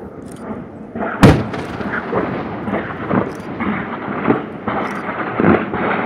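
A-10's 30 mm GAU-8 cannon firing a burst, with the rounds bursting on the range: about a second in a sudden loud crack, then a continuous rolling rumble with irregular cracks and booms.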